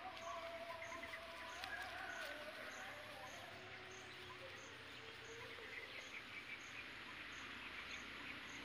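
Faint outdoor background: a high insect chirp repeating steadily about twice a second over a low hiss, with faint wavering calls in the first half.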